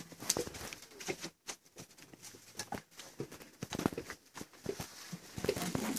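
Split firewood knocking and clattering as sticks are dropped and stacked into a small cast-iron stove's firebox, in an irregular run of short wooden knocks.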